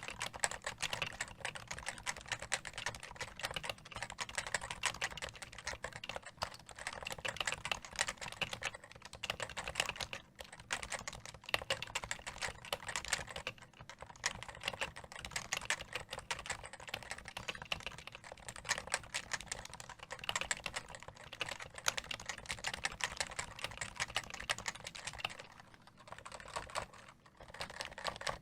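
Steady fast typing on a stock, unmodified Cooler Master CM Storm Novatouch keyboard with Topre electrocapacitive switches: a dense, continuous stream of keystrokes, with a few brief pauses.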